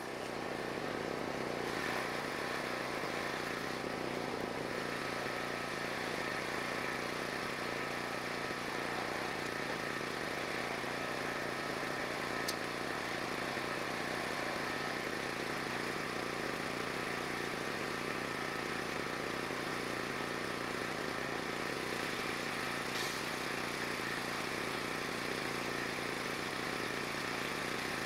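An engine running steadily at an even idle, with one or two faint ticks.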